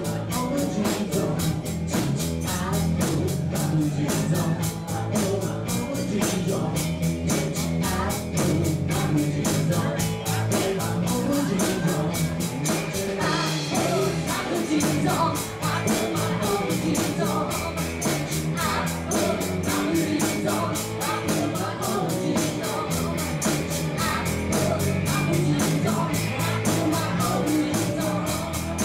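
Live country-rock cover band playing a song with singing, electric guitar and a steady drum beat.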